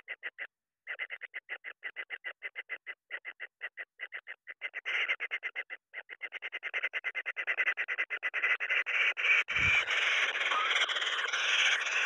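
Kingfisher nestlings begging: a rapid ticking of about nine calls a second that thickens about halfway through into a continuous harsh chatter, growing louder toward the end. One dull low thump comes near the end.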